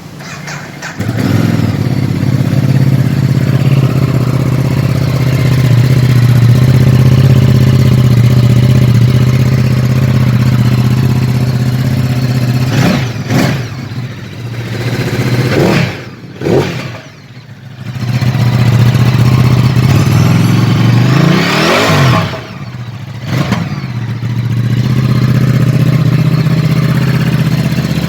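Ducati Multistrada 1200's L-twin engine comes up loud about a second in and runs steadily. From about twelve seconds in it is blipped several times, the revs rising and falling sharply with short drops between. It then settles back to a steady run.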